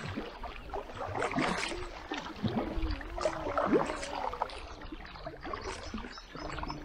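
Double-bladed kayak paddles dipping into calm water, with irregular splashes and drips from the blades between strokes.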